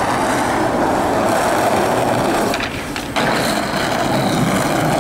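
Skateboard wheels rolling on concrete: a steady rolling noise that drops away briefly about two and a half seconds in, then picks up again.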